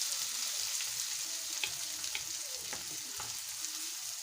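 Onions and freshly added chopped tomatoes sizzling in hot vegetable oil in a pan, a steady hiss, with a few light clicks as the mixture is stirred.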